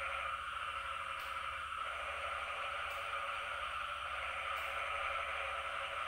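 Steady night chorus of insects: a dense, even drone that neither rises nor falls.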